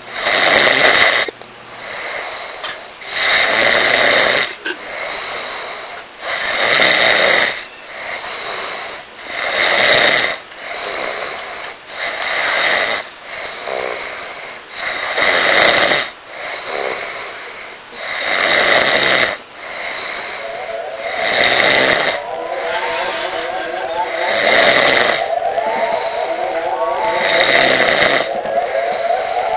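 Snoring: a loud, rasping snore about every three seconds, evenly spaced; a wavering whistle-like tone joins in between snores about two-thirds of the way through.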